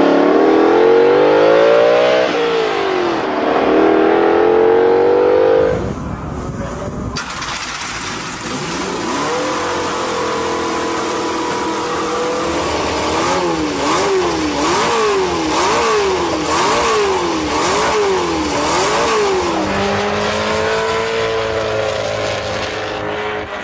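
A red 16-cylinder supercar accelerating hard away, its engine note climbing, dropping at a gear change about two seconds in, then climbing again. From about six seconds in, a 3-litre 16-cylinder Lotus Formula One engine revving freely, with about seven quick throttle blips near the middle, then running at a steadier pitch.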